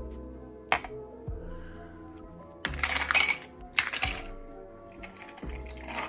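Ice cubes dropped into a glass tumbler, clinking loudly in two clusters near the middle, after a single sharp click of the glass set down on a stone counter. A drink starts pouring over the ice near the end. Background music plays throughout.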